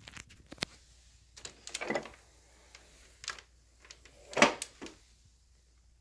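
A handful of irregular clicks and knocks of something being handled, with a short rattle just before two seconds in and the loudest knock about four and a half seconds in.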